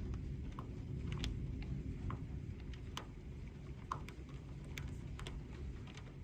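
Storm wind rumbling low and steadily on the microphone, with scattered raindrops ticking irregularly.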